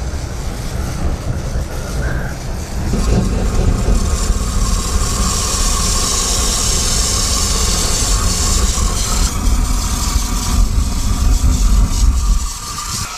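Homemade gas burner fed liquid propane, burning as a long yellow jet of flame with a loud, steady rushing hiss. Liquid gas is reaching the burner before it has warmed up enough to vaporise it. The rush grows louder about three seconds in and drops off near the end as the flame shrinks back to a small blue flame.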